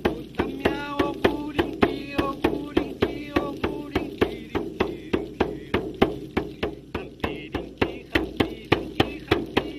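Hide frame drum struck with a stick in a steady beat, about three strokes a second. A man's voice chants over the drum through the first few seconds and briefly again near the end.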